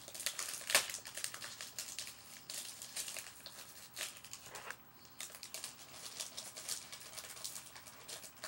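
Packaging crinkling and crackling in the hands as it is worked open, in a run of irregular rustles and clicks, with the sharpest crackle about a second in.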